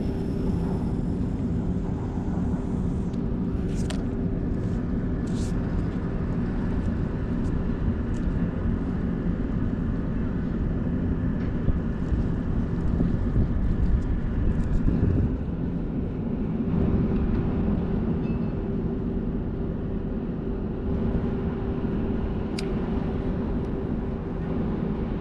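Steady low engine drone of harbour shipping, a hum of several steady tones over a low rumble of wind on the microphone, with a few faint clicks.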